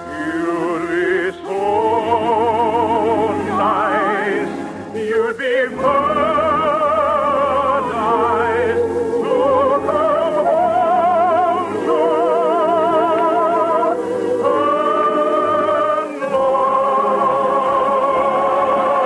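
A singer with a wide vibrato holding long notes over orchestral accompaniment, a sung number in a 1950s radio musical, with short breaks between phrases.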